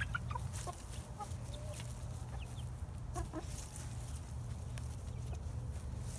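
Young Buff and Lavender Orpington chickens giving scattered short clucks while foraging.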